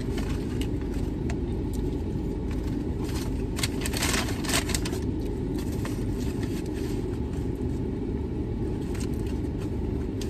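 Steady low rumble of a parked car idling, heard from inside the cabin. Paper crinkles and rustles in short bursts around three to five seconds in as a receipt and a burger box are handled.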